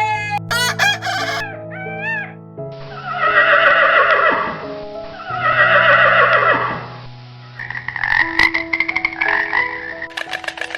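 A rooster crowing twice, each crow a long raspy call of about two seconds, over steady background music. About eight seconds in, a rapid rattling croak follows.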